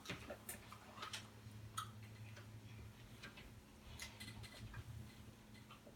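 Near silence: faint, irregular light clicks over a low steady hum.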